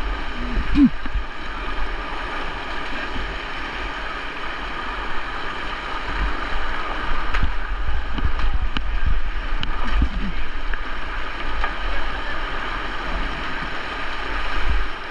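Fast, high river water rushing and gurgling steadily around a paddler's boat, with low thumps of wind buffeting the microphone at times.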